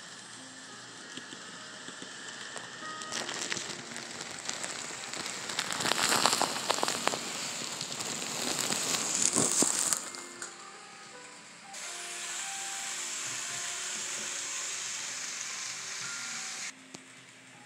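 N scale model train running across a truss bridge: a crackling, rushing noise from the rolling wheels and motor. It swells to its loudest between about six and ten seconds in and then drops away. A steadier hiss returns a couple of seconds later and stops abruptly near the end, all under soft background music with scattered held notes.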